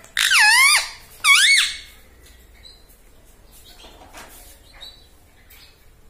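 Indian ringneck parakeet giving two loud, shrill calls, each swooping down and back up in pitch, in the first two seconds.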